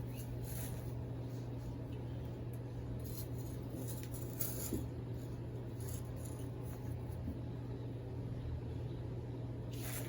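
Faint scraping and rustling of soil being scooped and dropped into a container by hand, a few light scrapes over a steady low hum.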